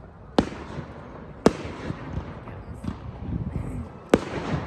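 Aerial firework shells bursting in a display finale: three sharp bangs, about half a second in, a second later and near the end, with a few fainter pops between.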